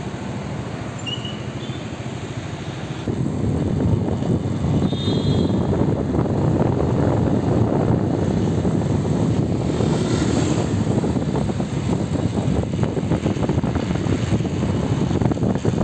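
Rumbling noise of a moving vehicle mixed with wind buffeting the microphone, getting louder about three seconds in.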